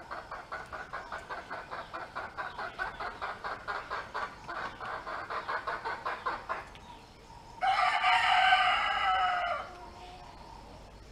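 Chickens clucking in a fast, even run of about five clucks a second for about six and a half seconds. After a short pause, a rooster crows once for about two seconds, the loudest sound.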